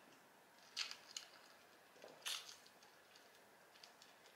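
Person drinking from a glass with ice: a few faint sips and gulps, the loudest a little past two seconds in, with small clicks between them.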